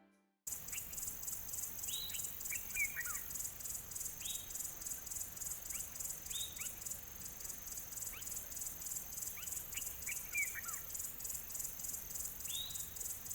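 Outdoor ambience of an insect chorus, crickets or similar, with a high, fast and even pulsing trill, and a bird calling now and then with short, downward-sliding chirps. It starts abruptly about half a second in.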